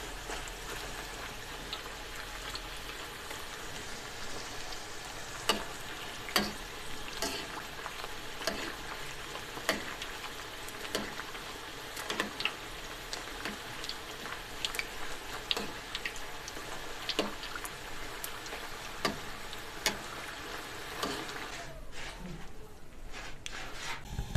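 A puri deep-frying in hot ghee in an iron karahi: a steady sizzle with scattered sharp crackles as the slotted spoon works it. The sizzle thins near the end as the puffed puri is lifted out of the oil.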